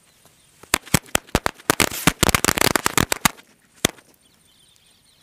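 A packet of small red firecrackers going off in a rapid, uneven volley of sharp bangs that starts under a second in and lasts about two and a half seconds, then one last single bang about half a second later.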